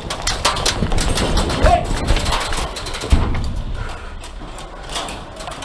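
Irregular clicks, clatter and knocks of footsteps and rattling kit as an airsoft player moves, densest in the first three seconds, with two heavy thumps about one and three seconds in.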